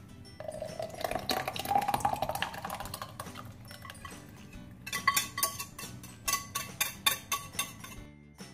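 Thick sauce poured from an aluminium saucepan into a blender beaker, its pouring sound rising a little in pitch as the beaker fills. Then a run of metal clinks and scrapes as the wire whisk knocks against the saucepan.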